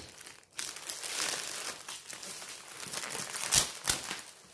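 Plastic packaging crinkling as an item is pulled out of air-column cushion wrap and plastic film, with two louder, sharp crackles about three and a half seconds in.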